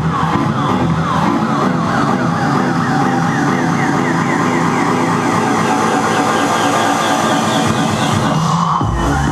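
Live electronic music in a breakdown: a siren-like synthesizer line of quick, repeating pitch slides over steady sustained tones, with no deep bass. A long rising sweep builds toward the end, and the heavy bass and beat drop back in just before the end.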